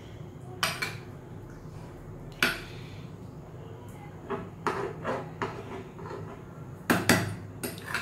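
Steel serving spoon stirring chicken in gravy in a pot, knocking and scraping against the pot's rim and sides in irregular clinks, the loudest a pair about seven seconds in.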